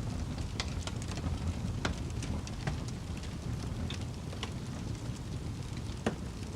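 Fire burning with a low steady rumble and irregular crackles and pops, one sharper pop near the end.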